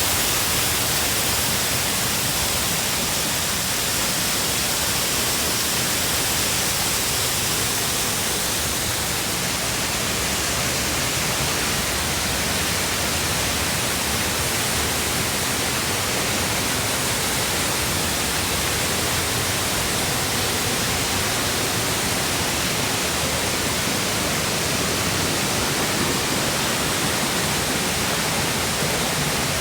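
Waterfall: water falling and splashing, a steady, even rush of noise.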